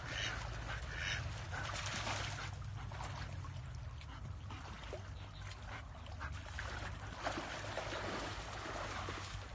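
Ducks quacking in short calls, clearest in the first second or so, over a rough rushing noise and a steady low hum.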